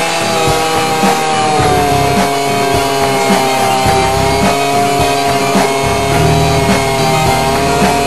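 Background rock music with guitar and a steady beat.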